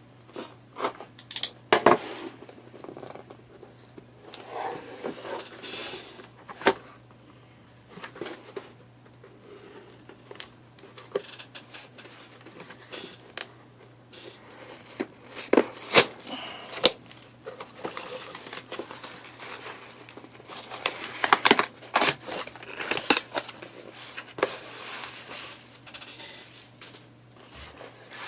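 A package being cut open and unpacked by hand: tape and packaging tearing, packing material crinkling, and scattered sharp knocks and clicks as things are handled.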